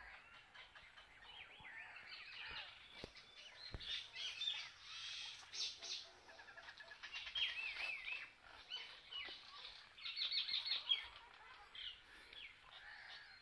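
Small birds chirping and calling, short high notes and warbling phrases overlapping, with a quick run of repeated high notes about ten seconds in.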